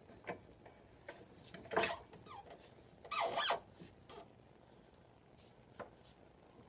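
Short squeaks, scrapes and a few light knocks as the stuck front wheel of a Suzuki Hayabusa is worked between the forks and brake calipers. The loudest squeaks come about two and three seconds in.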